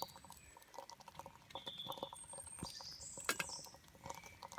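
Woodland birds singing faintly: short whistled notes about two seconds in and again past the three-second mark, with scattered light clicks and ticks.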